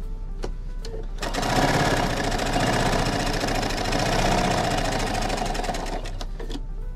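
Pfaff sewing machine stitching a seam through layered flannel squares at a fast, even pace. It starts about a second in and stops near the end, followed by a couple of light clicks.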